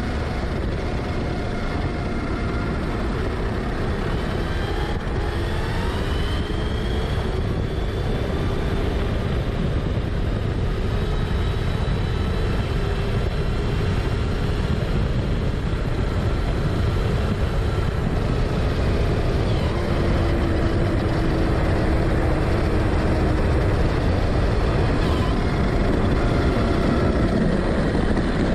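Onboard sound of an Arrma Kraton 6S RC car driving fast on asphalt: steady wind and tyre noise on the car-mounted camera, with a thin whine from its brushless electric motor rising and falling in pitch as the throttle changes.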